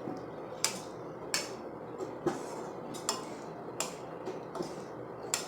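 Metal spoon or ladle clinking against a cooking pan about once every three-quarters of a second while a thick egg masala gravy is stirred as it boils.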